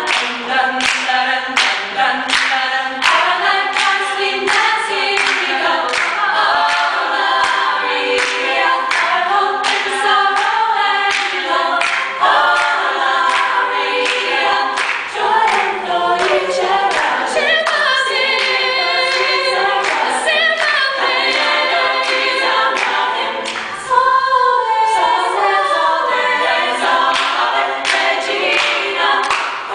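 Women's a cappella group singing in close harmony, with hand clapping on the beat at about two claps a second.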